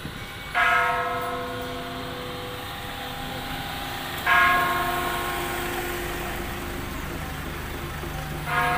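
A temple bell struck three times, about four seconds apart, each stroke ringing on and slowly fading over the next. A vehicle engine hums low close by near the end.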